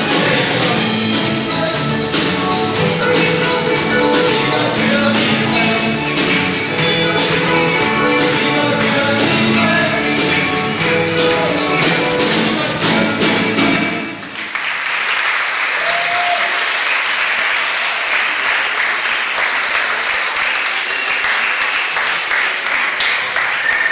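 Live band with guitars and drums playing a song that ends abruptly about fourteen seconds in, followed by an audience applauding.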